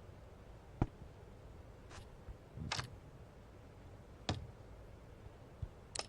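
A handful of short, sharp clicks and light knocks at uneven intervals, with a small cluster of them near the middle.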